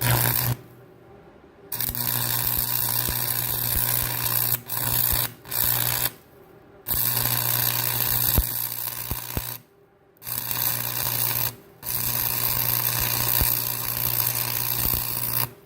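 Stick (arc) welding with a fresh electrode: the arc crackles and sizzles over a steady low buzz, going out and being struck again several times. It is the shaky, stop-start beginning of a new stick, which the welder puts down to the long new rod being hard to hold steady.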